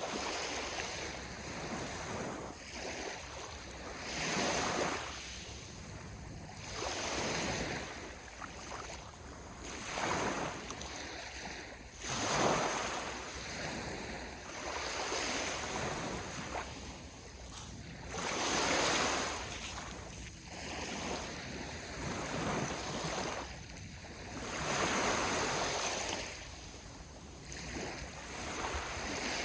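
Sea waves breaking and washing on a shore, the surf swelling and falling away every few seconds, with one stronger break about twelve seconds in.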